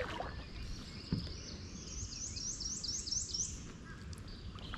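A songbird singing a quick run of about eight high, repeated notes, climbing slightly in pitch, over a faint steady low background noise.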